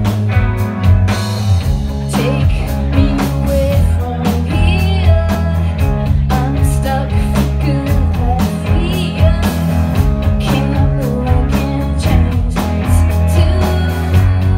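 Live rock band playing: electric guitars, bass and a steady drum beat, with a woman singing over them.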